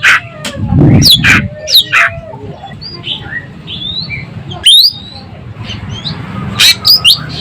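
Ekek keling bird calling actively, in loud, sharp notes that sweep steeply down in pitch. The notes come in clusters near the start, near the middle and near the end, with softer short whistled notes between them, over a steady low hum.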